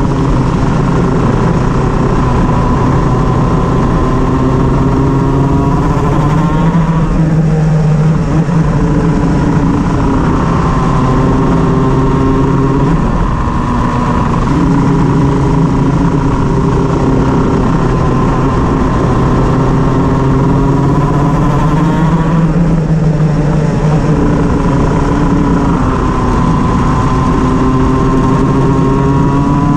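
Shifter kart's two-stroke engine running hard. Its pitch climbs in long sweeps and drops back several times as it speeds up and slows. The uploader reports the engine misfiring.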